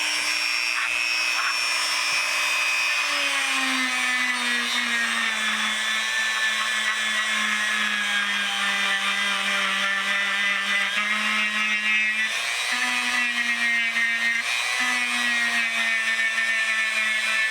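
Dremel rotary tool running with a cotton-bud tip, polishing small steel sockets. It gives a steady whine that drops in pitch about three seconds in, then dips and rises as the tip works the metal.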